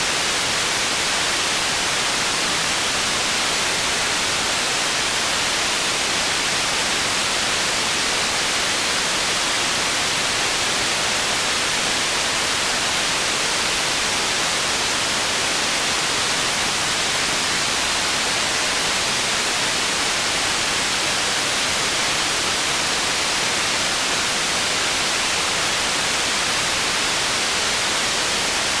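Processed white noise for tinnitus masking: a steady, even hiss, strongest in the upper-middle and treble range and thin in the bass, with no change throughout.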